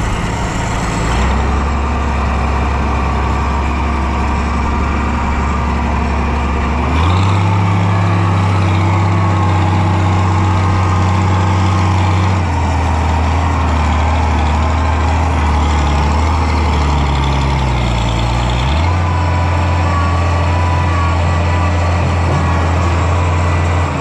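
Oliver 1650 tractor's six-cylinder diesel engine running steadily while driving through mud. Its engine note steps up about a third of the way in, drops back around halfway, and rises again about three quarters of the way through.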